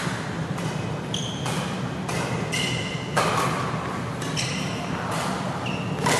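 Badminton rally: a shuttlecock struck back and forth by rackets, about ten sharp hits with the loudest near the middle and at the end, with short squeaks of court shoes on the mat between them.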